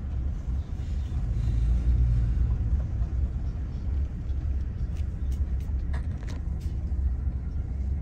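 Steady low rumble of a car driving slowly on an unpaved road, heard from inside the cabin, with a few faint clicks a little past halfway.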